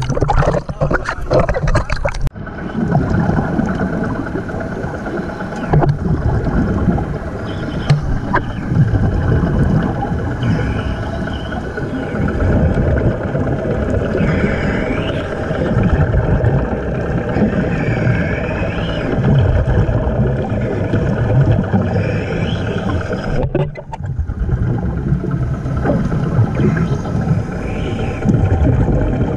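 Splashing at the sea surface, which cuts about two seconds in to an underwater recording: a dense low rumble of water with a steady engine hum carried through the water, heard while a diver breathes from a compressor air hose.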